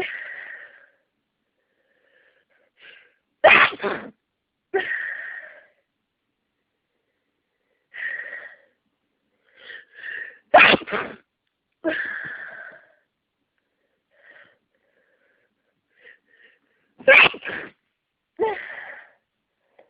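A person sneezing hard three times, about seven seconds apart, in an allergic sneezing fit. Each sneeze is followed by a softer sound lasting about a second, with short quiet breaths between sneezes.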